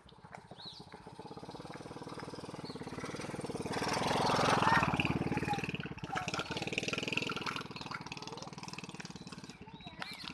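A small engine running with a fast, even pulse. It grows louder to a peak about four to five seconds in, then eases off again.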